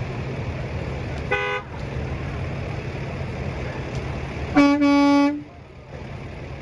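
Vehicle horns honking: a short, higher honk about a second in, then a louder, lower-pitched honk of under a second near the middle. A steady low rumble underneath stops just after the second honk.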